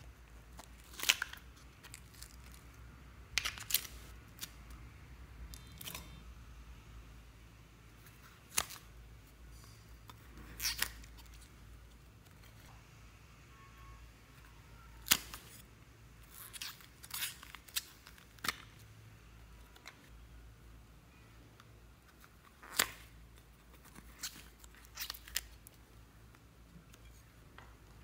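Sharp clicks and snaps of small plastic slime containers being handled and their lids pressed and opened, a dozen or so scattered irregularly, the loudest about a second in, midway and about two-thirds of the way through.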